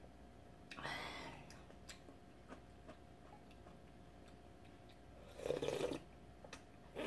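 Ramen broth being slurped from a spoon, twice: once about a second in and again near the end. Faint chewing and small clicks come in between.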